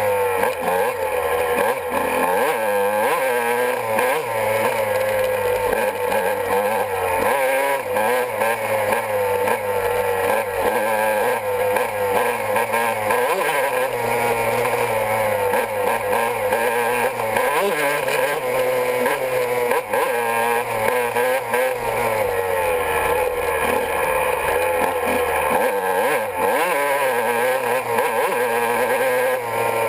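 Honda CR125 dirt bike's two-stroke single-cylinder engine running hard on a trail, its pitch rising and falling continually with the throttle and gear changes.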